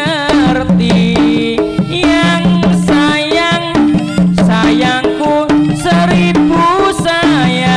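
Live jaranan music: a Javanese folk ensemble with hand drums keeping a busy rhythm under held low tones and a wavering high melody line.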